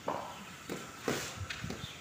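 Cricket ball and bat play on a concrete floor: a quick run of knocks and scuffs, the loudest about a second in.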